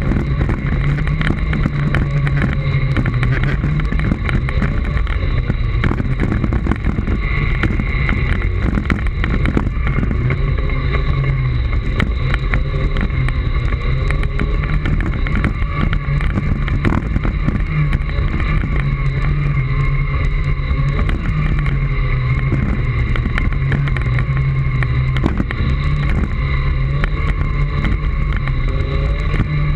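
Segway's electric drive motors and gearboxes giving a steady whine and hum while riding a rough dirt trail, with frequent knocks and rattles from bumps in the ground.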